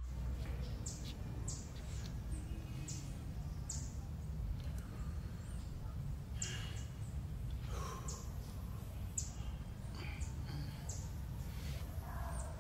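Birds chirping: a string of short, high calls, each dropping in pitch, about one every second or so, over a steady low rumble.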